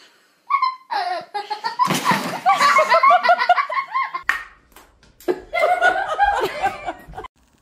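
People laughing hard in quick, breathy bursts. The laughter breaks off for about a second partway through, then starts again as giggling laughter.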